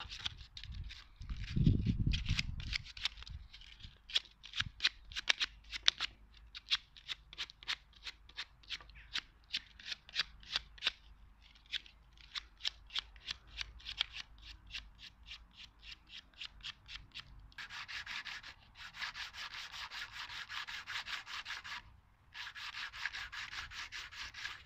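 Sandpaper rubbing a wooden dowel peg by hand in quick short back-and-forth strokes, about two or three a second. From about three-quarters of the way in it changes to longer continuous rubbing strokes. This is sanding the bench dog down to a snug fit in its hole. A dull low bump comes about two seconds in.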